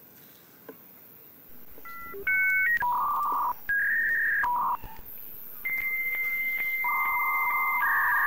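Electronic beep tones in a slow sequence of changing pitches, some two at once, each held from a fraction of a second to over a second. They sound like a simple synthesized tune.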